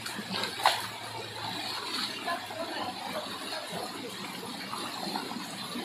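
Shallow rocky stream running over stones, a steady wash of water, with faint voices and one brief sharp sound under a second in.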